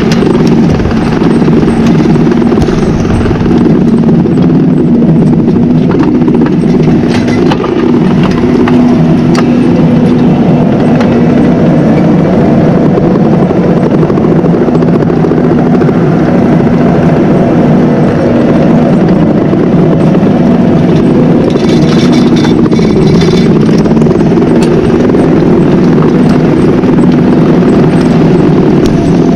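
Tractor engine running steadily under load while ploughing: a loud, even drone with scattered clicks and rattles, and a brief burst of higher rattling about two-thirds of the way through.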